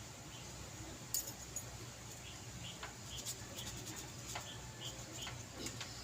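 Faint, short, high-pitched squeaks from a small animal, about eight of them spread over a few seconds, with a few scattered clicks.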